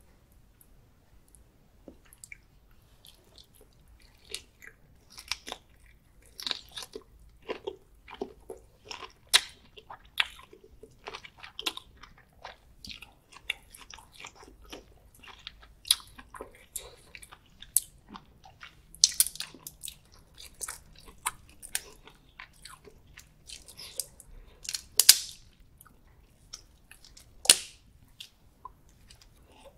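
Close-miked chewing of a garlic-butter prawn: irregular mouth clicks and smacks, several a second, starting about two seconds in.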